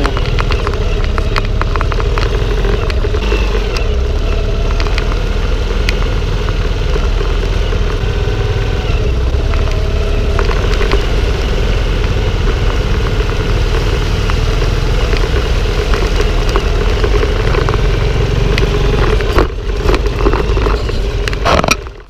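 Small single-cylinder motorcycle engine running steadily at low speed, heard from a camera mounted on the bike, with heavy wind rumble on the microphone and scattered clicks and clatter from the rough track. The engine drops away near the end.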